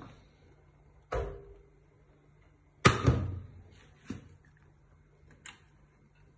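A few knocks of cookware as the fried-vegetable dressing is tipped and scraped from its pan into the borscht pot. The loudest knock comes about three seconds in and rings on briefly; a softer one follows about a second later.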